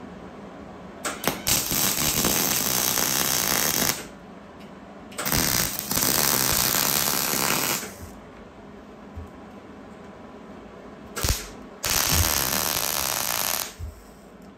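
Wire-feed welder arcing on galvanized steel channel in three welds of about two to three seconds each, with brief sputters just before the first and the last.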